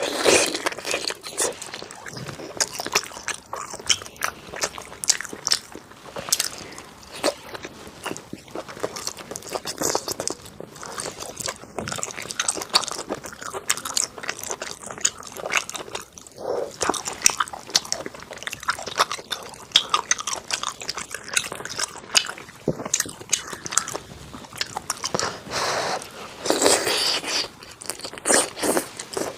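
Close-miked eating: a steady run of crunchy bites and chewing, many short crackling crunches in quick succession, a little louder about twenty-six seconds in.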